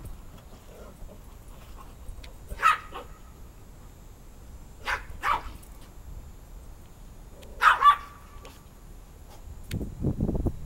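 A dog barking in short, sharp single barks: one about 2.5 s in, a quick pair near 5 s and another pair near 8 s. A low rumble comes near the end.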